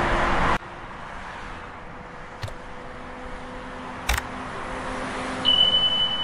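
City traffic noise that cuts off abruptly about half a second in. After it comes a low hiss with two sharp mouse-click sound effects, then a steady, high electronic notification tone lasting about a second near the end.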